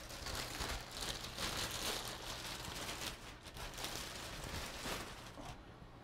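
Thin plastic bag crinkling and rustling as it is pulled off foam packing; the rustling dies away near the end.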